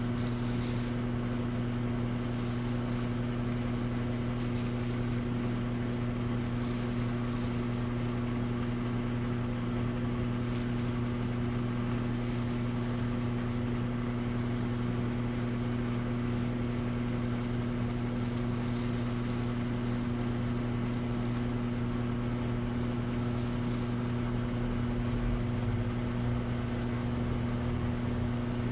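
Electrolux Essential Care LES11 11 kg washing machine running with a steady, unchanging motor hum.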